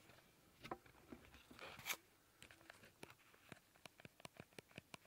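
Scolopendra giant centipede chewing an adult locust: faint crackling and crunching of the locust's body, a louder tearing rasp a little under two seconds in, then a quick run of small sharp clicks, several a second.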